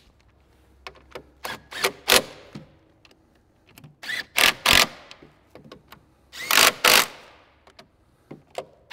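Bolts on a mini excavator's hydraulic tank cap being tightened down with a tool: a run of short, sharp mechanical bursts, several in quick pairs, the loudest about halfway through and again a couple of seconds later.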